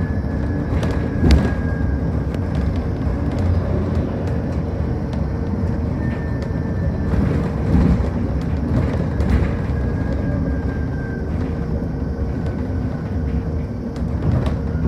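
Cabin noise of an electric bus on the move: a steady low rumble of tyres on the road with scattered knocks and rattles, a steady hum, and a faint high whine from the electric drive that slides slowly down in pitch a few times.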